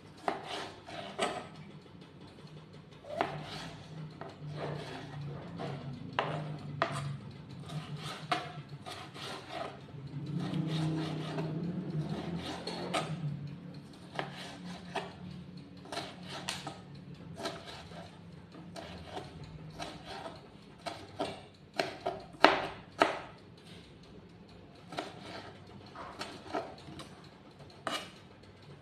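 Kitchen knife chopping tomato on a plastic cutting board: irregular sharp taps of the blade on the board, with a cluster of louder strikes about two-thirds of the way in.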